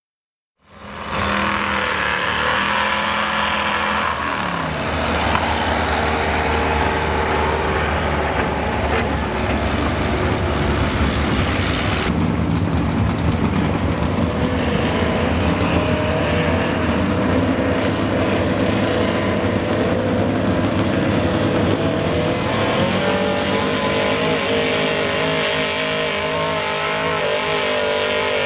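Gas-engined Chevrolet 4x4 pulling truck's engine running loud and hard at high revs under the load of a weight-transfer sled. The engine comes in abruptly just under a second in and holds a steady, heavy note.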